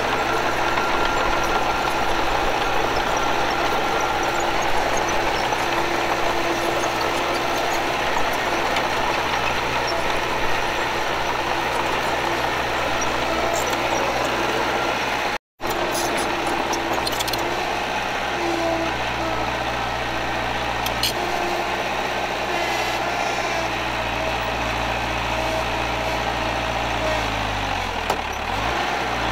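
Diesel engine of heavy earthmoving machinery running steadily. The sound cuts out for an instant about halfway through, and the engine pitch dips and comes back up near the end.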